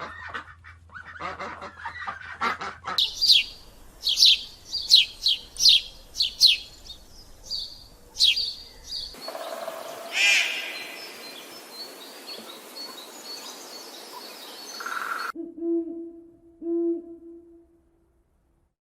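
A run of bird calls: for the first few seconds, then a series of sharp, high, falling chirps at a quick pace, and near the end a few low hooting calls. The sound cuts off shortly before the end.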